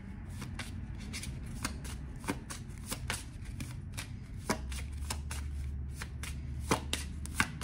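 A tarot deck being shuffled by hand: a run of quick, irregular soft clicks and flicks of cards against each other. A low steady hum comes in about halfway through.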